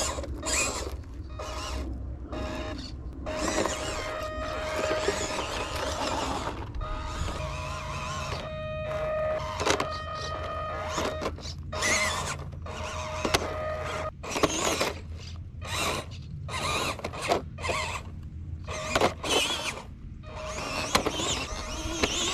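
Small electric motor and gears of a 1/18 scale RC crawler truck whining in short, stop-start throttle bursts as it crawls over grass and up onto a concrete block. The tyres rustle through the grass.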